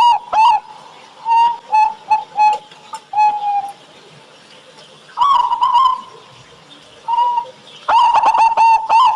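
Zebra dove (perkutut) cooing: a rapid run of short, clipped coos at the start and again from about eight seconds in, with scattered single notes and one longer coo between.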